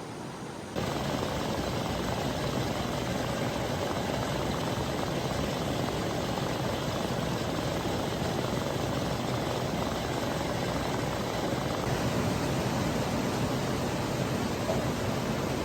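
Large farm machinery running steadily: an even engine drone under a broad rushing noise, cutting in abruptly about a second in.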